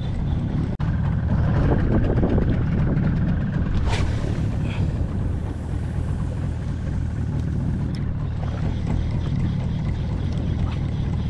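Steady low rumble of wind buffeting the microphone over water lapping around a small open boat, with one sharp click about four seconds in.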